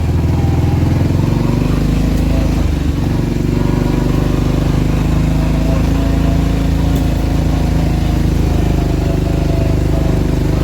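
Four-wheeler (ATV) engine running steadily as it is ridden along.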